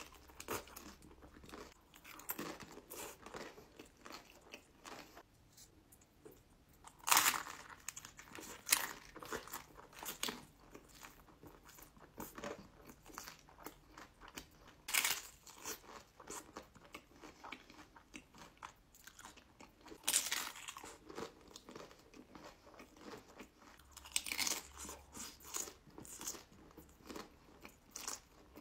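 Close-up eating: a crunchy orange hard taco shell with cheese sauce is bitten and chewed. Loud crunches come every few seconds, with softer chewing between them.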